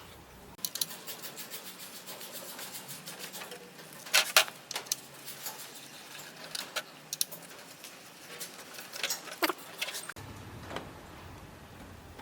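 Irregular clicks and light clinks of hard objects being handled, with two sharp loud clicks about four seconds in.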